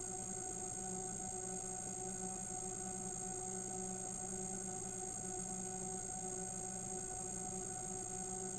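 A steady electronic hum made of several held tones, low and high, over a faint hiss, unchanging throughout.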